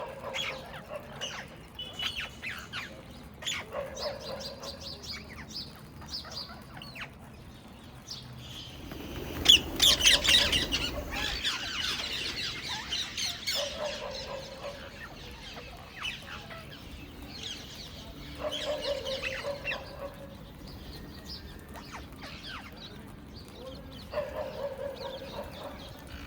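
A flock of Indian ringneck parrots calling: repeated harsh screeches every few seconds, with quicker high chattering calls between them. About nine and a half seconds in comes a louder burst of noise with many overlapping screeches.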